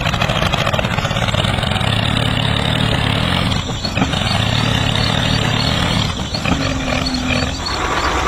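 A small engine running steadily with a low hum, typical of a DIY mini tractor's motor.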